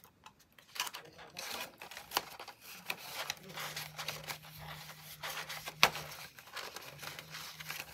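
Paper banknotes and a clear plastic binder envelope rustling and crinkling as cash is slipped into the sleeve and smoothed flat, with scattered light clicks and one sharper click about three quarters of the way through.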